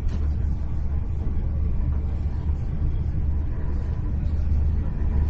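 Steady low rumble of a Hitachi Class 800 Intercity Express Train heard from inside the passenger carriage as it runs along the line, with a faint click near the start.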